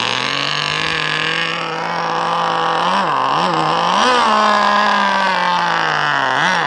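Vintage K&B two-stroke nitro (glow) outboard running loudly on a cold engine, set very rich. Its speed holds fairly steady, then swings up and down several times about three seconds in and again near the end.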